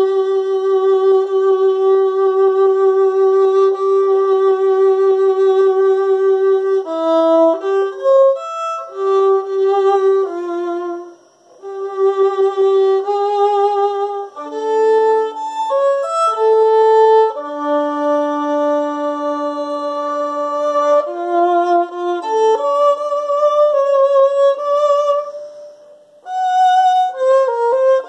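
Solo violin played with the bow: long held notes with vibrato alternating with shorter, quicker phrases, with brief pauses about eleven seconds in and near the end.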